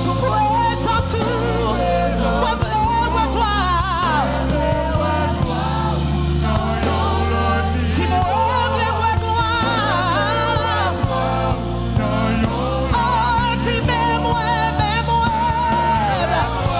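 Live gospel praise-and-worship music: sung melody with wavering, held notes over a steady band with sustained bass and drums.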